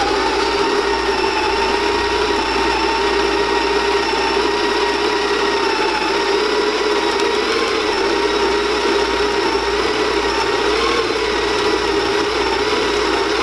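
Electric espresso grinder running steadily as it grinds a double shot of espresso beans at a fine setting.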